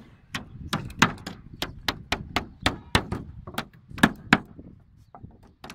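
A hammer driving nails into wooden battens laid on a plank panel: a quick run of sharp blows, about three to four a second, thinning to a few lighter taps near the end.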